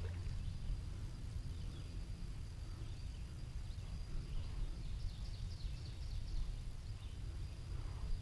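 Steady low wind rumble on the microphone, with a faint run of high bird chirps about five seconds in.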